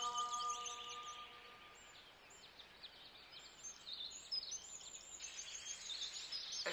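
Small birds chirping over a faint steady hiss, while a held musical tone fades out over the first second or two.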